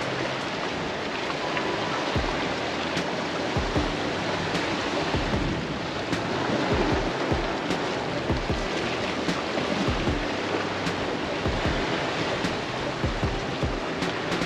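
Small sea waves washing and lapping against shoreline rocks, under background music with a steady low bass.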